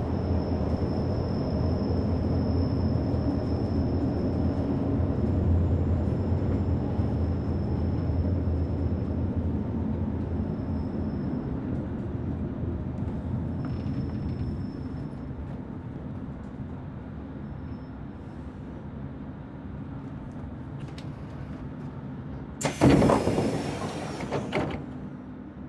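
Inside a commuter train arriving: the low rumble of the running train, with a high thin whine, fades steadily as the train slows to a stop. About 23 seconds in, the doors slide open with a loud hiss lasting about two seconds.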